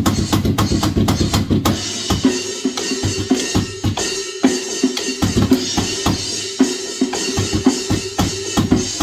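Electronic drum kit played in a fast, busy beat of kick drum and snare hits.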